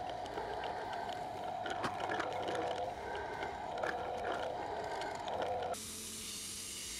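Drill press boring through a steel knife tang: a steady cutting noise with scattered clicks. Near the end it switches abruptly to the steady hiss of a belt grinder running.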